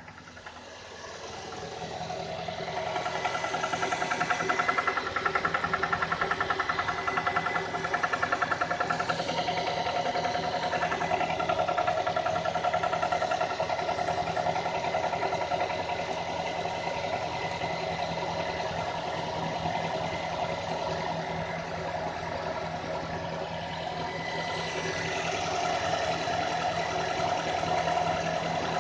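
Renault Koleos 2.5-litre four-cylinder petrol engine running, its sound swelling over the first couple of seconds and then holding steady, with a rapid, rhythmic knock over the engine note. This is the knock the owner reports on a cold start.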